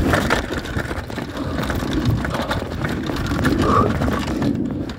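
Downhill mountain bike riding fast down a rough dirt trail: a continuous rumble of tyres on dirt and stones, with the bike rattling and knocking over the bumps.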